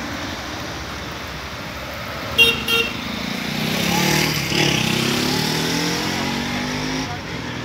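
A road vehicle's horn gives two short toots about two and a half seconds in. Then a motor vehicle drives past, its engine note bending and rising over a few seconds before fading.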